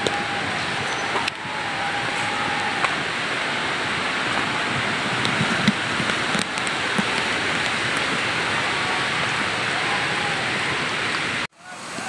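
Steady rush of heavily flowing water from a waterfall stream in monsoon spate. It drops out abruptly near the end, then comes back.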